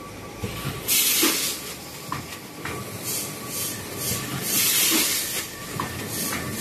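Automatic vertical form-fill-seal packaging machine cycling: repeated bursts of air hissing from its pneumatic cylinders, with sharp mechanical clicks between them.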